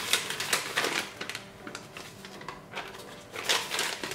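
Plastic bag and folded paper instruction sheet crinkling and rustling as they are handled and unfolded. The crackles come irregularly, busiest at the start and again near the end.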